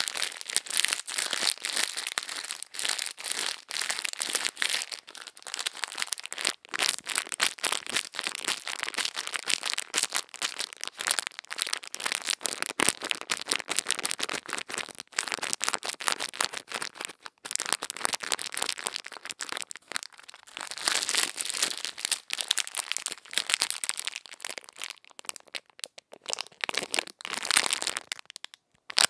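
Close-miked ear-cleaning ASMR sounds: dense, crisp crackling and scratching, with a few brief pauses.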